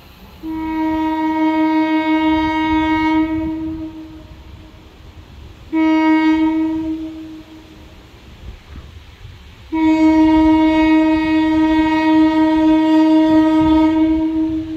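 Chicago Aurora and Elgin interurban car 458's air horn sounding three blasts, long, short, then long, each a single steady note.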